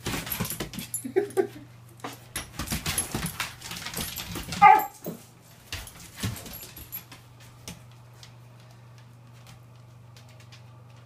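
Dogs scrabbling after a laser dot on a tiled floor: rapid claw clicks and scuffles, a small whimper about a second in, and a short sharp yip about five seconds in, the loudest sound. After that, only occasional quieter clicks.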